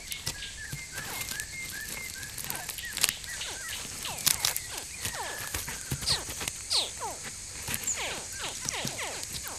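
Nile crocodile hatchlings calling from the nest: a busy chorus of short, quickly falling chirps, with a few sharp clicks and a faint steady high tone in the background.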